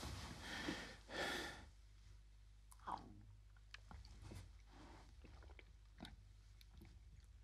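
A man breathing heavily twice, then faint swallowing and small wet mouth clicks as he sips water.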